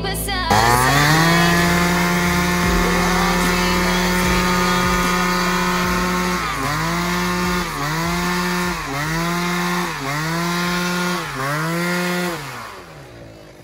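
Tuned two-stroke scooter engine with a Yasuni expansion-chamber exhaust, held at high revs in a stationary burnout with the rear tyre spinning. Just after halfway the revs dip and climb back five times, then the engine drops off near the end.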